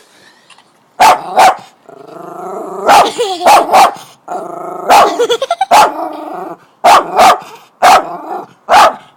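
Jack Russell terrier barking and growling: about a dozen sharp barks, often in pairs, starting about a second in, with a steady growl between them.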